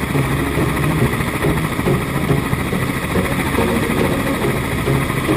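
Helicopter running: a loud, steady drone of engine and rotor.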